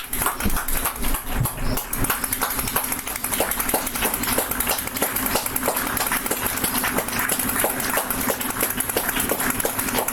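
A group of neighbours clapping for the weekly Clap for Carers: many quick, uneven claps overlapping.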